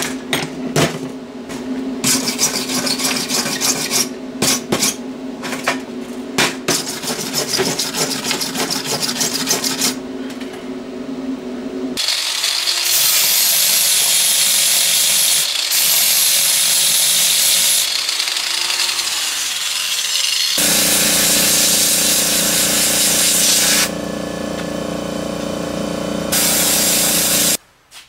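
Angle grinder with an abrasive disc grinding a steel plate, in two long passes that change at about two-thirds of the way in and stop abruptly near the end. Before the grinding, there is a stretch of crackling and sharp clicks over a steady hum.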